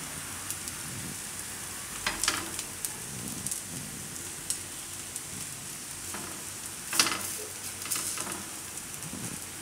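Oil sizzling steadily in a pan as bottle gourd (dudhi) tikkis shallow-fry, with a few light clicks of a silicone spatula about two seconds in and again near seven seconds.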